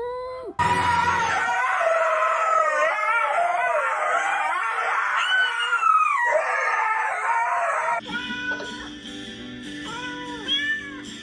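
Dogs howling in turn: a brief falling howl cut off in the first half second, then a large white dog's long, wavering howl for about seven seconds, then a small white dog giving short rising-and-falling howls.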